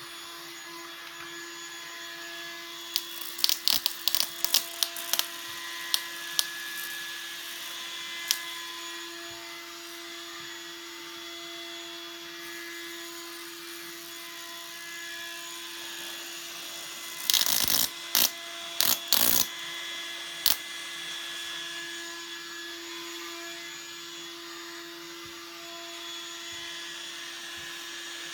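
Home-built Tesla coil driven by microwave oven transformers, running with a steady electrical buzz. Two clusters of sharp cracking snaps of arcing come a few seconds in and again past the middle; the builder puts the arcing down to the capacitors jumping because they are loose.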